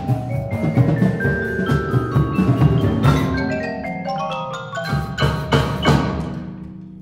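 Percussion ensemble playing, with marimbas and other mallet instruments over drums. It opens in fast, dense rhythmic strikes, thins out after about three seconds, and lands two loud accented hits around five and six seconds in. Near the end it gets quieter, leaving ringing mallet notes.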